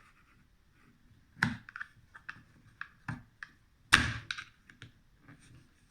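Survival knife kit gear being handled and packed into its sheath pouch: a string of light clicks and knocks, with two louder thunks about one and a half and four seconds in.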